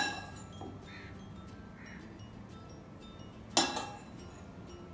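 A metal spoon strikes a glass mixing bowl with a sharp clink that rings briefly, about three and a half seconds in. At the start, the ringing of an earlier clink fades out. Faint background music plays underneath.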